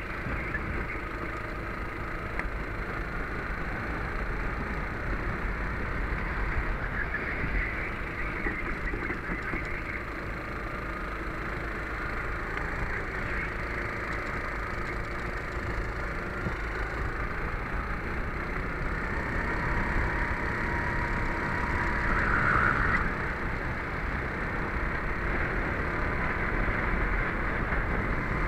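Racing kart engine heard from on board at speed, its note rising and falling as the kart goes through corners and along straights, over a steady low rumble of wind and vibration on the microphone.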